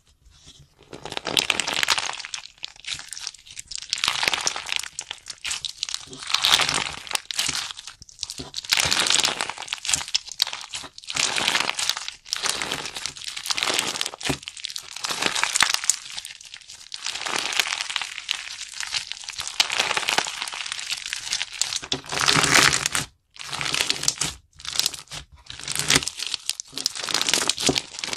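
Crunchy slime being squeezed, pressed and stretched by hand, giving dense crackling and popping in repeated swells, with a couple of brief breaks near the end.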